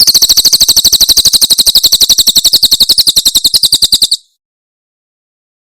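Cililin bird giving its 'tembakan' (shot) song: a fast, even rattle of high notes, about fourteen a second, that stops abruptly after about four seconds.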